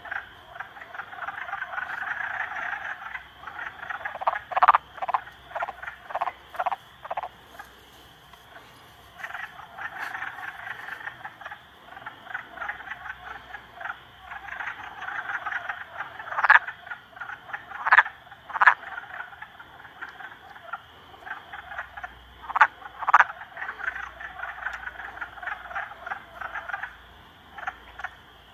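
A chorus of many frogs calling together at a breeding pond: a dense, continuous croaking. Louder, sharper close calls stand out from it now and then, and the chorus eases off briefly twice.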